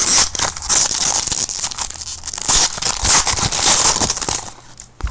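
Trading card pack wrapper being torn open and crinkled, a dense crackle that dies down near the end, followed by a single click.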